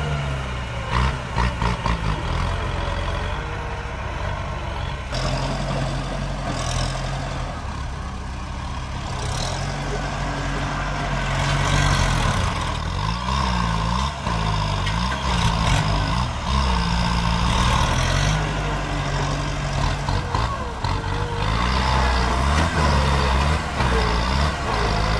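Diesel engines of two bladed farm tractors working under load as they push soil and tree stumps, engine speed rising and falling repeatedly, with occasional knocks.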